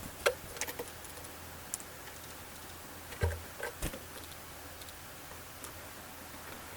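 Small birds, tits, pecking at food: irregular sharp taps, a cluster near the start and another about three seconds in, over a steady faint hiss.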